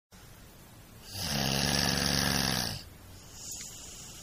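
A sleeping man snoring: one long, loud snore starting about a second in and lasting about a second and a half, followed by a faint breath.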